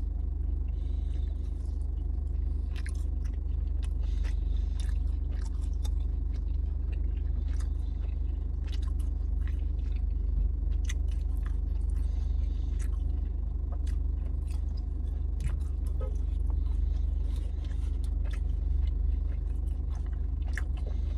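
A person biting and chewing a piece of barbecued meat, with scattered small clicks of mouth and handling noise, over a steady low rumble inside a car.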